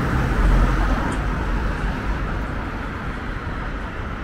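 City street traffic: cars driving past close by, a mix of engine hum and tyre noise, loudest about half a second in and then settling into a steady din.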